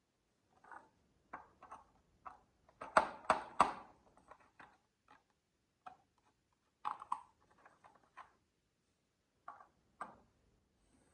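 Marbles clicking and clacking on a marble run track in irregular knocks. Three loud strikes come in quick succession about three seconds in, with scattered lighter clicks after.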